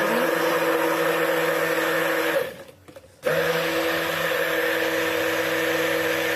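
Handheld stick blender running steadily in a jug of cold-process soap batter, emulsifying oils and caustic soda solution toward trace. It stops about two and a half seconds in and starts again under a second later.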